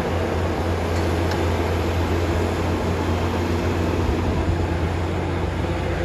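Diesel engine of a Caterpillar crawler bulldozer running steadily under load as it pushes soil, a constant low drone.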